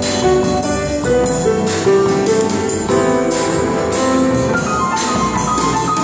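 Music with piano over a steady drum beat and cymbals.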